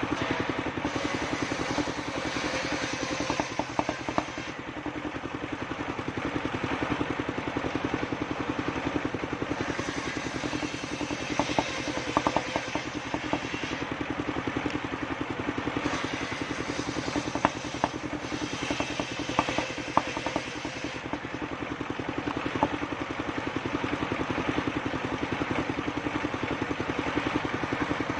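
Engine of a homemade circular sawmill running steadily, with three stretches where a brighter, hissing sound rises as the blade cuts through wood. Scattered sharp knocks and clatter from the timber and the machine come through the engine noise.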